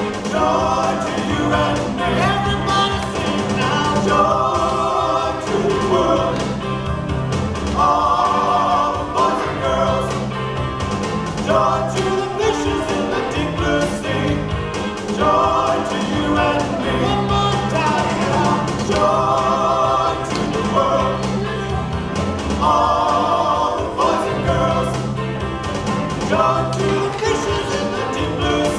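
A song playing: voices singing a wavering melody over an instrumental backing with steady sustained bass notes.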